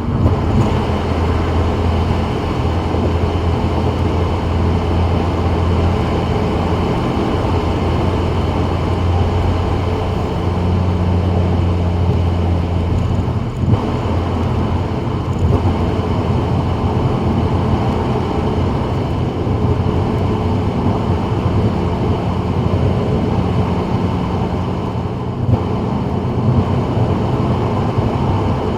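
Steady road noise of a 2024 Subaru WRX cruising on a wet freeway: tyre hiss on the wet road over a low engine and drivetrain drone that shifts a little in pitch now and then.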